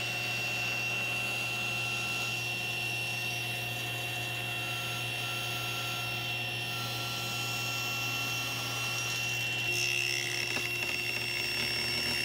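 Table saw running with a steady motor hum and high whine, a walnut workpiece being fed toward the blade to trim a straight edge; the sound gets a little louder and rougher near the end as the blade begins cutting.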